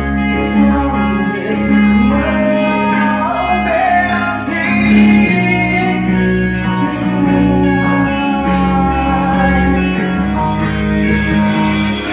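Live rock band playing: electric guitars, bass guitar and drums, with a man singing and cymbal crashes a few times.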